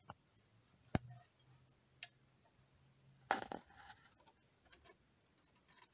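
Mostly quiet, with a few sharp clicks and a light knock from a plastic oil drain pan being held and shifted under a scooter engine, the sharpest about a second in, and a short rustle a little after three seconds.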